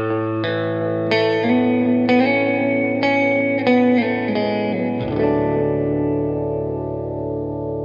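Intro music: a guitar with effects plays a short run of picked notes over a held low note, then lets a chord ring out and slowly fade from about five seconds in.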